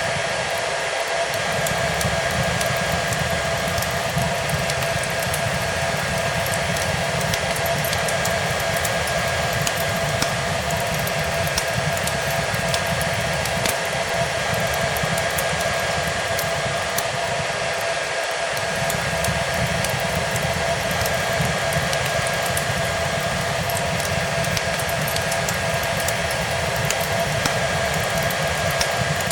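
Hair dryer running steadily: a constant rush of blown air with an even motor whine, layered with a fireplace's scattered small crackles and pops.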